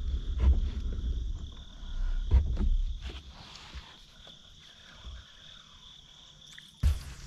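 A steady high-pitched chorus of calling animals, such as frogs or insects at the water's edge. Low rumbles and thumps run under it for the first three seconds, and a single sharp knock comes near the end.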